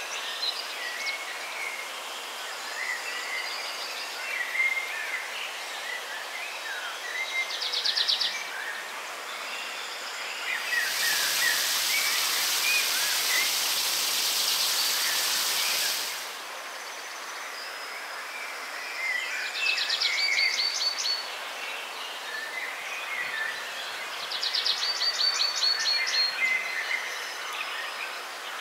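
Forest ambience with several birds singing: short chirps throughout and a fast repeated trill a few times. For about five seconds in the middle, a steady rush of water falling from a small mossy cascade covers the birds, then stops abruptly.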